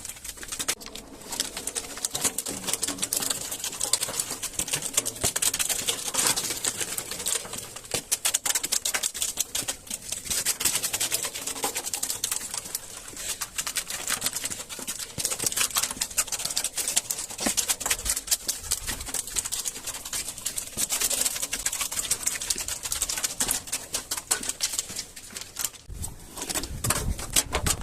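Dense, irregular crackling and crunching, many small clicks in quick succession, as crunchy things are crushed.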